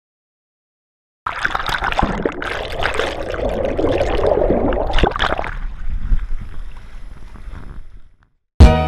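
Sea water sloshing and splashing around a camera at the water's surface, with wind buffeting the microphone. It starts suddenly after a second or so of silence and fades out about eight seconds in. Guitar music comes in sharply just before the end.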